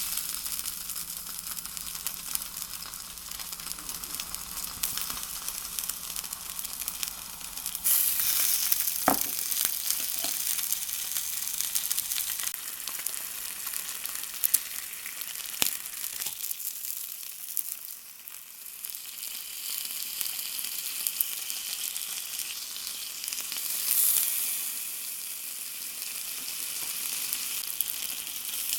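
Shogayaki (ginger pork) frying in a pan with a steady sizzle. The sizzle surges louder about eight seconds in and again near the end, and there are a few sharp clicks along the way.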